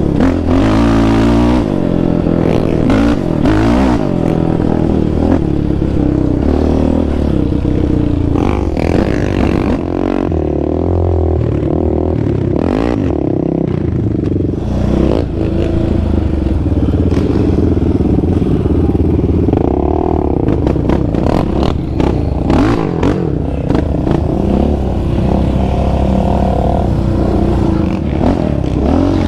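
Yamaha Raptor 700R's single-cylinder engine through an aftermarket exhaust, revving up and down as the quad is ridden, with repeated clattering knocks from the machine over rough ground.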